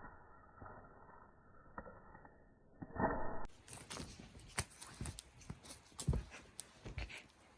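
A cat thumping and scrabbling about as it plays: irregular light taps, knocks and scrapes, muffled at first and sharper from about three and a half seconds in.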